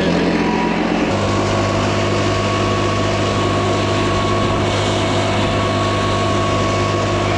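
An engine running at a steady speed. About a second in, its pitch steps up slightly and then holds steady.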